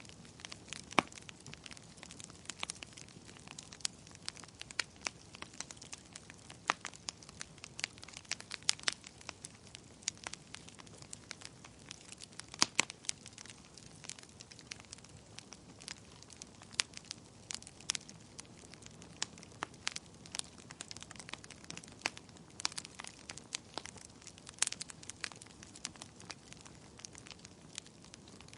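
Wood fire burning in a fireplace, crackling with irregular sharp pops and snaps over a faint steady hiss.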